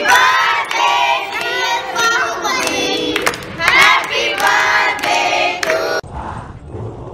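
A group of children and adults singing together while clapping their hands. About six seconds in, the singing cuts off suddenly and a quieter murmur of voices follows.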